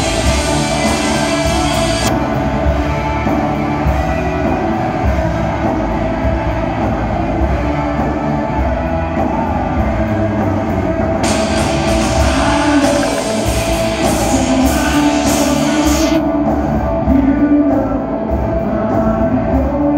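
Live rock band playing loudly in a large hall: electric guitars, bass and drums, with a voice singing. Cymbals brighten the sound at the start and again for several seconds in the second half.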